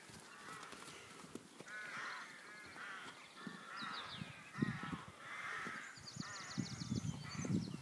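Crows cawing repeatedly in the surrounding trees: a run of harsh calls about once or twice a second. Higher, faster bird chatter joins in near the end, along with a few low thuds.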